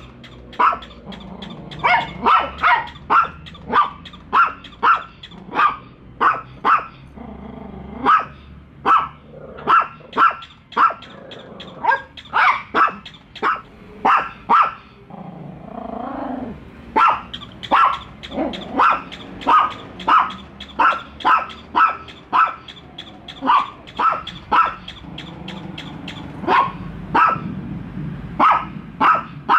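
Small dogs barking repeatedly: long runs of sharp barks at about two a second, with a few short pauses.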